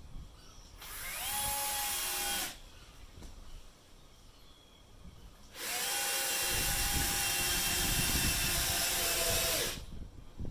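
Electric power tool running twice: a short run of under two seconds, then a longer one of about four seconds. Each time the motor spins up to a steady whine and then stops.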